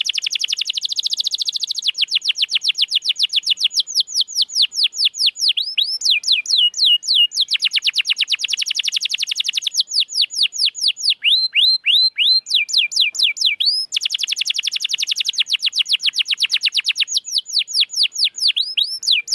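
Domestic canary singing: fast trills of repeated down-slurred whistled notes, about seven a second, switching to a new trill every second or two.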